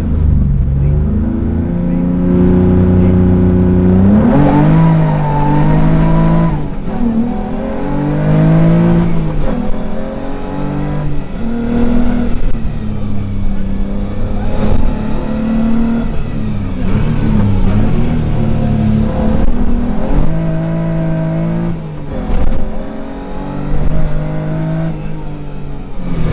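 Rally car engine heard from inside the cabin at full stage pace, revving hard up through the gears and dropping back on lifts and gear changes, over and over.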